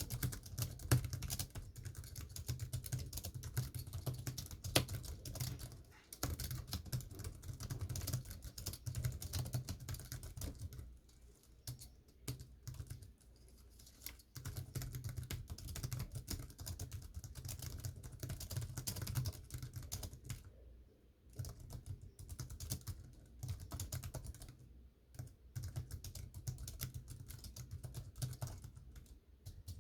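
Continuous fast typing on a non-mechanical computer keyboard: dense soft key clicks, pausing briefly twice.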